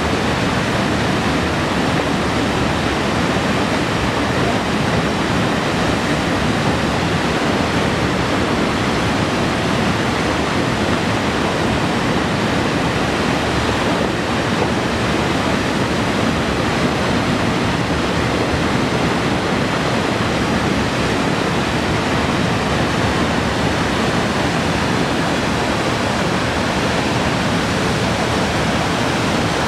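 Waterfall pouring over rock ledges into a plunge pool: a loud, steady rush of falling water.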